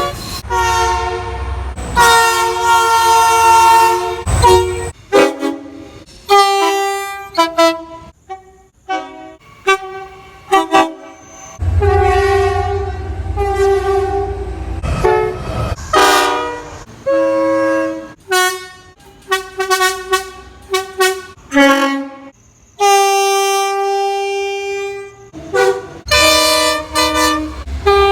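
Train air horns sounding a multi-note chord, in a string of short toots and longer blasts that start and stop abruptly, some with a low rumble beneath.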